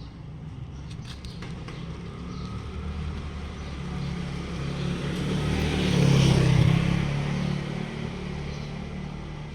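A motor vehicle passing by, its engine and road noise growing louder to a peak about six seconds in, then fading away.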